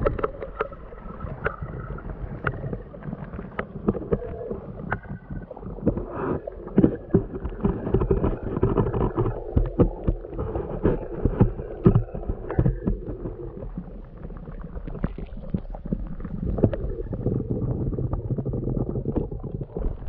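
Muffled underwater sound from a camera held beneath the water's surface: water gurgling and sloshing against the camera, with many small clicks and knocks.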